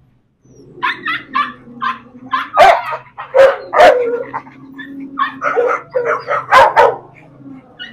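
Pit bull-type dogs barking and yipping in a rapid run of short calls starting about a second in, with several louder barks in the middle and again near the end.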